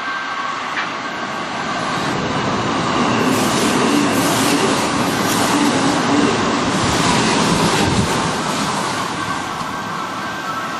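Kintetsu commuter electric train passing close at speed: a steady rush of wheels on rail and running gear that builds to its loudest in the middle and eases off near the end.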